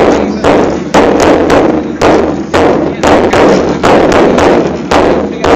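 A large skin-headed drum beaten with sticks by several men together, in a steady rhythm of heavy strokes about two a second, each stroke ringing on briefly before the next.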